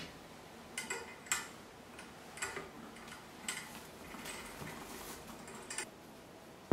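Faint scattered clicks and light taps, about six in all, from handling the grooming loop and its hardware on a dog grooming table.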